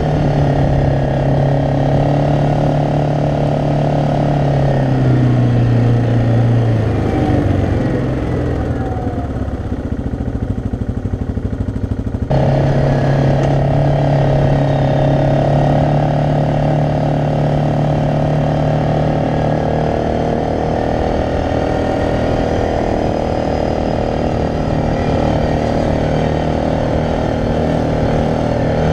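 Yamaha Grizzly 600 ATV's single-cylinder four-stroke engine running under way, heard from the rider's seat. Its pitch falls as it slows about five seconds in and sits lower and quieter until about twelve seconds in, when it cuts abruptly back to a steady cruising note.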